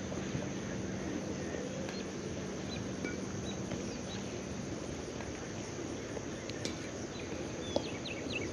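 Steady outdoor ambience of insects trilling, with a low steady hum that stops about halfway through and a few short chirps near the end.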